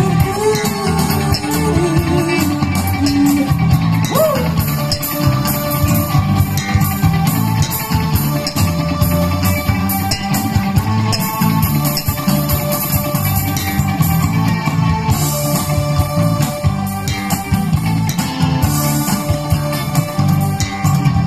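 A live band playing amplified music through PA speakers: electric guitar, keyboard and drums, with a voice singing over it in the first few seconds.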